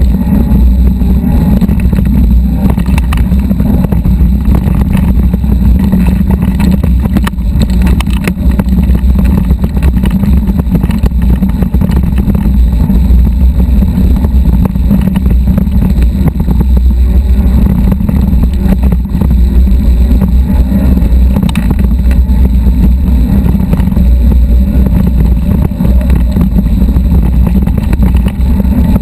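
Electric-assist mountain bike riding over a rocky dirt trail: a loud, steady low rumble with constant small rattles and jolts as the bike-mounted camera shakes over the rough ground.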